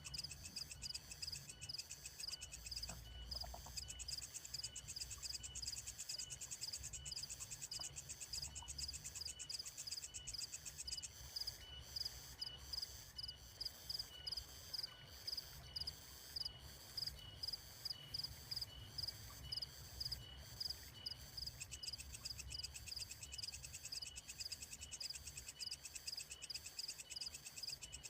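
Steady chorus of calling insects. One high chirp repeats evenly, about one and a half times a second, over a faster, very high trill that drops out for a stretch midway and then comes back.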